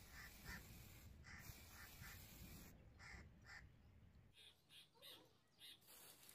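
Faint hiss of an aerosol spray-paint can, sprayed in short bursts. Short bird calls come through repeatedly, often in pairs.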